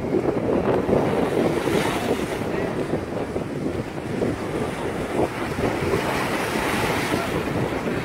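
Small sea waves washing and splashing against a rock jetty, with wind rumbling on the microphone. The surf swells twice, about two seconds in and again near seven seconds.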